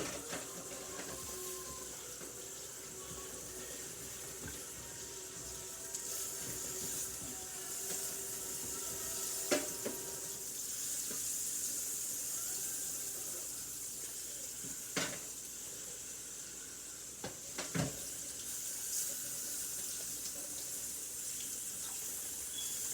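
Butter and steak sizzling steadily in frying pans, a constant high hiss, with a few sharp knocks of utensils against the pans.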